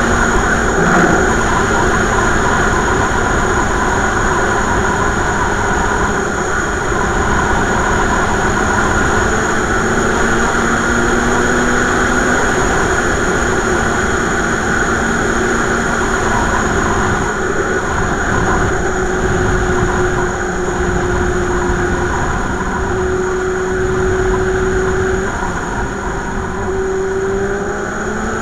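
Motorcycle cruising at highway speed: a steady rush of wind over the microphone with the engine's drone underneath, its pitch climbing near the end as the bike speeds up.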